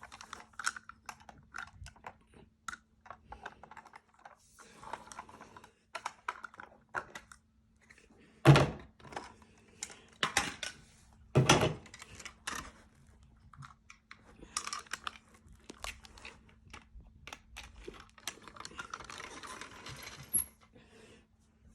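Toy farm machinery being handled and moved around: scattered small clicks, rattles and light knocks, with two louder thunks about eight and a half and eleven and a half seconds in.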